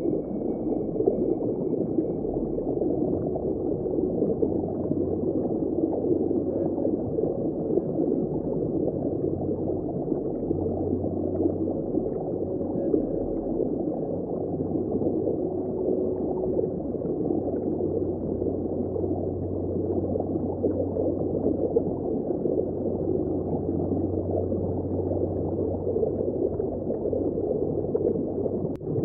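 Underwater ambience: moving sea water and bubbles heard below the surface as a steady, dull rushing with no hiss, and a low rumble that swells and fades.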